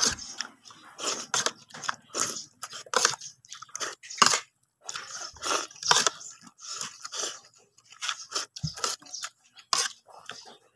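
Close-up mouth sounds of a person chewing mouthfuls of plain rice with salt, a steady run of short, irregular chewing noises, about one or two a second.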